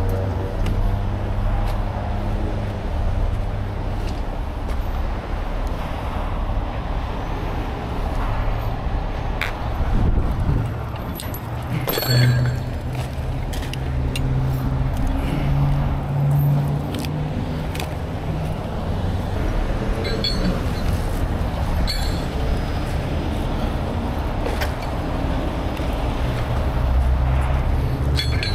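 Steady low hum of a running engine and passing freeway traffic, with a few sharp metallic clinks of tow chain being handled.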